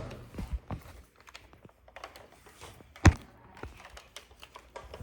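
Scattered light footfalls and knocks, with one louder thump about three seconds in.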